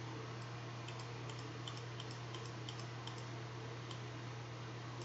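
Faint, irregular clicks of a computer mouse, about a dozen spread through, as it is clicked on a window's scroll bar, over a steady low hum.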